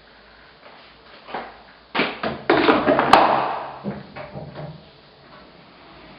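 Door of a Miele tumble dryer being handled: a few knocks about two seconds in, then a clattering rattle with one sharp click, fading out over about a second.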